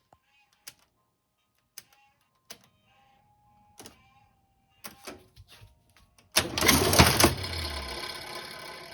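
National Model 1500 vintage cash register being operated: a few sharp separate clicks as keys are pressed, then about six seconds in a loud mechanical clatter as the mechanism cycles, ringing on and fading away toward the end.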